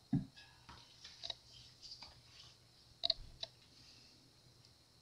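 Faint clicks and light taps of hands and small tools on a bass guitar: a short knock at the start as a capo is clamped onto the neck near the nut, scattered small ticks, and a sharp cluster of clicks about three seconds in, while the neck relief is checked after a truss-rod adjustment.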